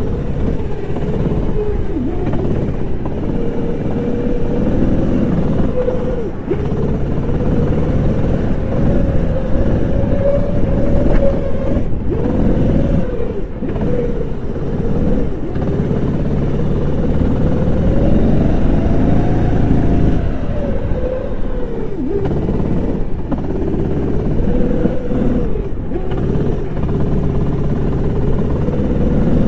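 Kart engine heard close up from onboard, its note climbing under throttle and dropping sharply several times as the kart slows for corners, then climbing again.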